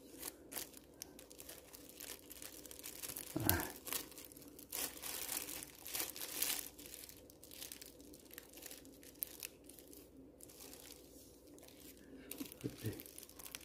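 Plastic packaging wrap crinkling and tearing as it is pulled off, in irregular rustles, with a brief low sound about three and a half seconds in.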